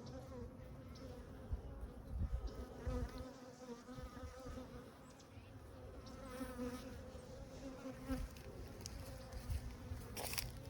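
Honeybees buzzing around the hive, a steady wavering hum, with a few low bumps and a sharp click near the end.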